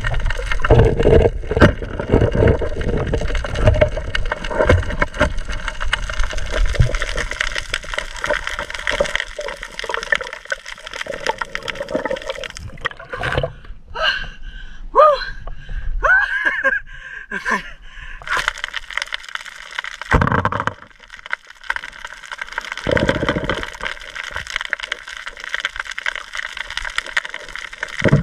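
Water gurgling and bubbling heard underwater as a spearfisher swims with a torch, with a heavy low churning of water in the first few seconds. A few short squeaky pitch glides come about halfway through, and brief splashy bursts later.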